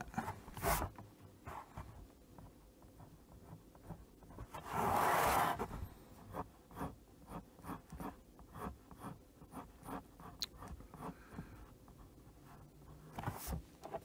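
Graphite pencil scratching on sketchbook paper in short, light strokes, from a 2 mm lead holder with HB lead. About five seconds in there is one louder breathy whoosh near the microphone.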